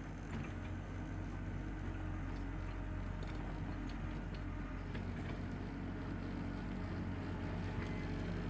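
Tractor engine running steadily while driving a power rake through rough ground, with a few faint scattered ticks over the low hum.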